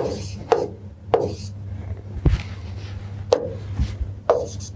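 Stylus tapping and scraping on the glass screen of an interactive whiteboard while writing: about five sharp taps roughly a second apart, with short scratchy strokes between them.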